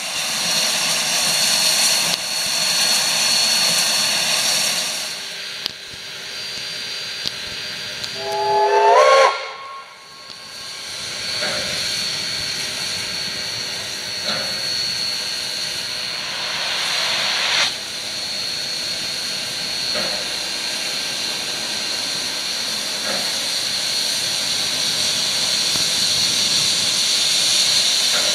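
Steam locomotive Ww 644 (a New Zealand Railways Ww-class tank engine) hissing steadily as it vents steam. About nine seconds in it gives one short chime whistle that rises in pitch, the loudest sound, then cuts off.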